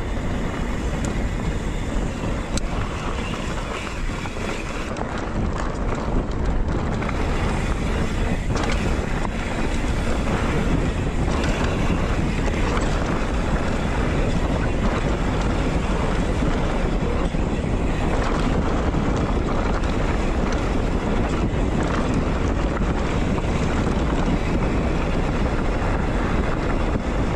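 Steady wind rush on the microphone of an action camera riding a mountain bike downhill, mixed with the rumble of knobby tyres rolling over a dirt and gravel trail, with a few faint clicks and rattles.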